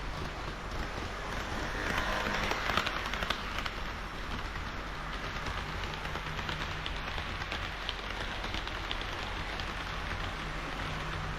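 HO scale model train of Kiha 40 and Kiha 58 railcars running on the track: a steady rolling rush from the wheels with many small clicks and a low hum, louder for a second or so about two seconds in.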